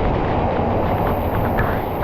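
Steady loud roar of rushing water, with no breaks or distinct events.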